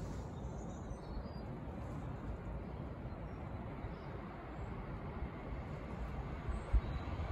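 Low, steady rumble of a train approaching from a distance, growing slightly near the end, mixed with wind on the microphone.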